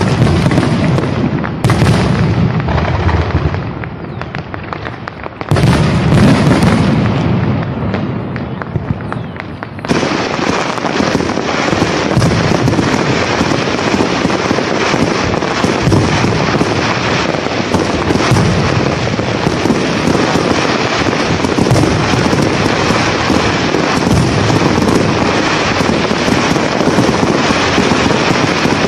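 A big fireworks display: deep booms of shells bursting overhead through the first ten seconds or so, then a dense, continuous crackle of many small reports.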